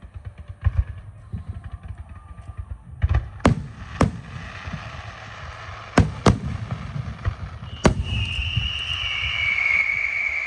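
Fireworks going off, fired electrically: a run of low thumps with half a dozen sharp bangs among them and a rising crackle. From about eight seconds in, a high whistle slowly falls in pitch.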